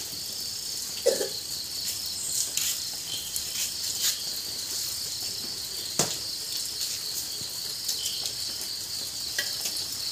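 A steady, high-pitched chorus of insects such as crickets chirring, with two sharp clicks, one about a second in and one near the middle.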